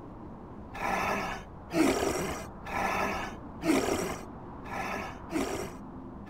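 A cartoon seal snoring in its sleep. It makes three slow cycles, each a raspy in-breath followed by a shorter out-breath, about two seconds per cycle.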